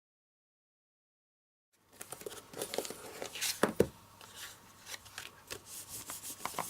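Dead silence for nearly two seconds, then paper and cardstock being handled on a craft desk: rustling and crinkling with light taps and clicks, the loudest a couple of knocks about three and a half seconds in.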